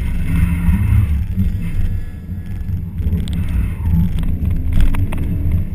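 Car engine heard from inside the cabin while the car is driven hard through a cone course, its note rising and falling as it accelerates and lifts, with a dip about two seconds in.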